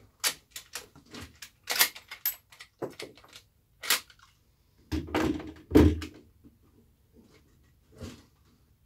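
Lever-action rifles being handled at a shooting bench: a string of sharp metallic clicks and clacks, with two heavier thumps about five seconds in as gear is knocked or set down on the bench.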